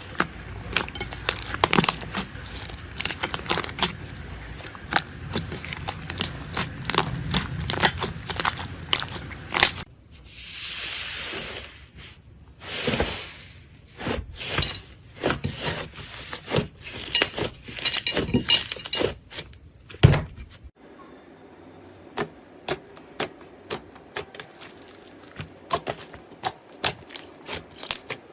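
Slime being pressed, stretched and poked by hand, making a dense run of sharp crackling pops and clicks, with a longer hissing squish about ten seconds in.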